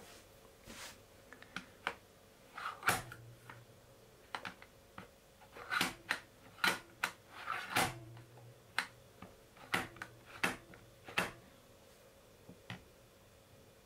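Irregular light clicks and taps of a metal fork and fingertips against a fluted metal tart tin, some with a dull knock of the tin on the table, as tart dough is pressed into the tin and pricked. The taps come thickest between about three and eleven seconds in and then die away.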